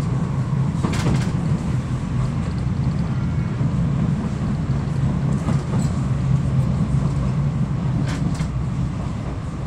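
Steady low rumble of a moving tram heard from inside the car, with a few brief clicks or rattles.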